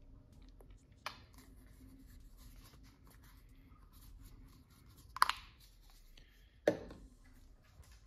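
Small plastic bottles of acrylic craft paint being handled, with faint rustling and three sharp clicks or knocks: a light one about a second in, then two louder ones about five and six and a half seconds in.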